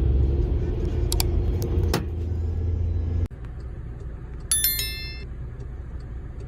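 Dash-cam recording of a car on the road: a loud low rumble of engine and road noise with a couple of sharp clicks cuts off abruptly about three seconds in. A quieter rumble follows, with a brief high-pitched tonal squeal or beep a second and a half later.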